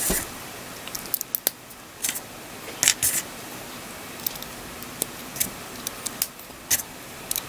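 Small plastic building bricks clicking and clattering as they are picked up off a table and snapped onto a block figure: sharp irregular clicks, with a louder pair about three seconds in.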